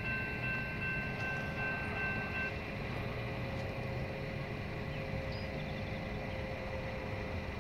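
Railroad crossing warning bell ringing steadily with the signals activated, cutting off about two and a half seconds in, over a steady low rumble.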